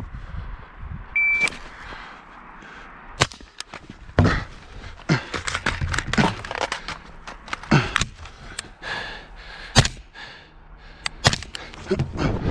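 A shot timer beeps once, then a 5.56 AR-15 carbine with a Geissele URGI 14.5-inch upper fires a string of shots spaced unevenly over the next several seconds. The rifle is shooting 55-grain steel-case ammunition that it does not cycle well.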